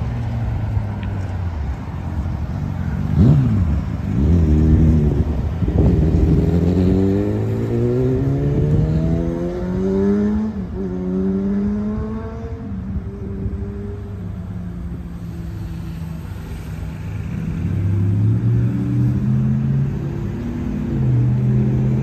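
Road traffic: a vehicle engine accelerating, its pitch climbing, dropping at a gear change about halfway through, then climbing again. A steady low engine hum follows near the end.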